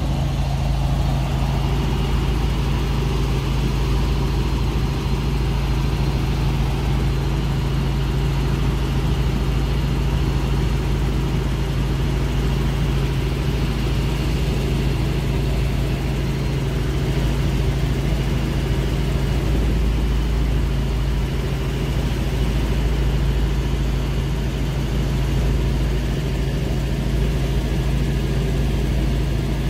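Helicopter in steady flight, heard from on board: a constant, unchanging drone of rotor and engine.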